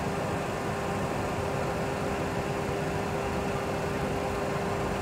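Boeing 737 Classic full flight simulator playing the sound of its CFM56 turbofans at idle thrust while taxiing: a steady drone with a constant mid-pitched tone.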